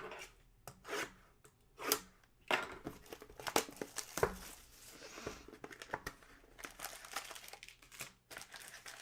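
Trading card packaging being torn open and crinkled by hand: irregular crackling and tearing of plastic and foil wrap, with short sharp rips every second or so.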